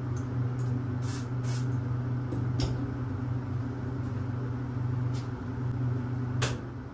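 Air spray gun hissing in several short bursts as paint is sprayed, over a steady low machine hum.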